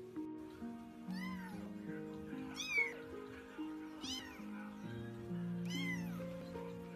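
Young kitten meowing four times, each a short high cry that rises then falls in pitch, over background music.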